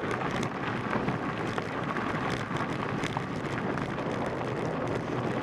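Mountain bike rolling along a gravel dirt trail, heard from a camera mounted on the bike or rider: a steady rush of tyre and wind noise with small scattered clicks and rattles.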